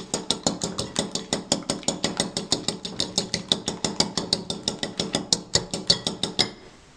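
A metal fork whisking egg whites in a ceramic bowl: rapid, even clinks of the fork against the bowl, about eight a second, stopping shortly before the end.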